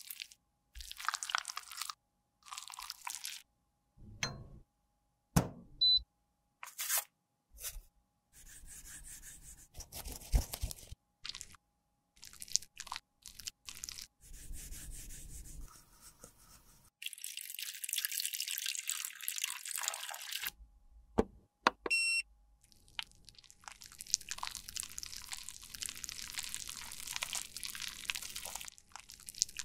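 Close-up sounds of cosmetics being crushed, scraped and mixed by hand: a string of short crunches, taps and scrapes in separate bursts, then longer stretches of hissing scraping or stirring after the middle.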